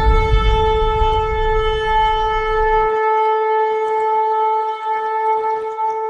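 A long horn blast held steady on one note throughout. A deep rumble underneath it stops suddenly about three seconds in.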